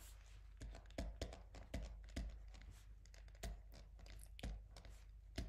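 Faint, irregular light clicks and taps, roughly two a second, from handwriting being entered into a computer drawing program, over a low room hum.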